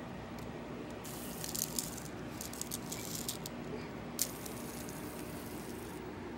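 Roman Atwood fidget spinner spinning on a hard floor, a high whirring rattle from about a second in until near the end, with a few sharp clicks as it is flicked and knocked.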